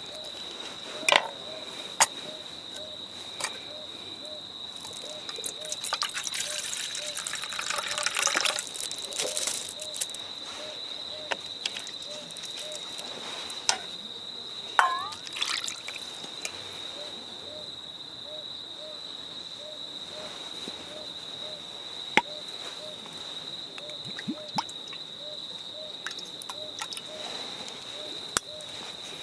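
Liquid being poured and trickling for a few seconds, with scattered sharp clicks and knocks of cookware. Under it runs a steady high insect drone and a faint chirp that repeats about every two-thirds of a second.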